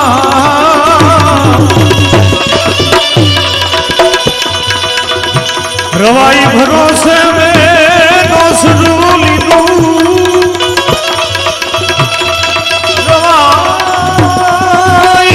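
Indian folk devotional music with tabla playing a steady rhythm under held drone notes and a wavering melodic line that slides upward about six seconds in.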